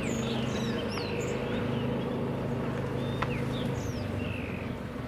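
Steady hum of a riding infield groomer's small engine as it drags the infield dirt, with small birds chirping above it in short falling whistles.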